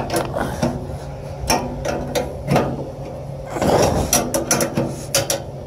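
Hand ratchet wrench clicking in short irregular spells as mounting bolts are snugged down, over a steady low hum.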